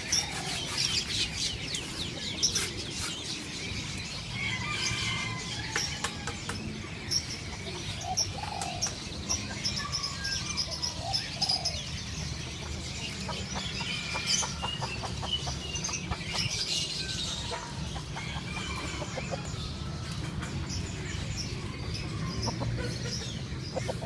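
Many caged birds chirping and whistling together, with chicken clucks mixed in, over a low steady background rumble.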